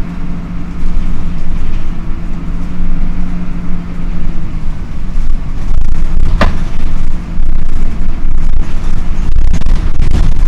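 Dennis Dart SLF bus idling with its engine cooling fan running: a steady low rumble, with a droning tone on top that fades out about halfway. A single sharp knock comes about six and a half seconds in.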